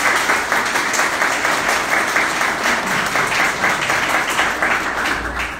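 An audience applauding, a dense run of many hand claps that stops abruptly near the end.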